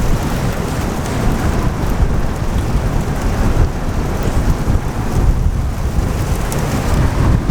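Storm wind at up to 60 miles an hour buffeting the microphone: a heavy, rumbling buffeting under a steady hiss as a storm front passes over.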